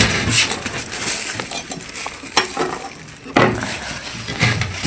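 Thick freezer frost being scraped and chipped, a crunchy scraping broken by about four sharp knocks, the loudest a little over three seconds in.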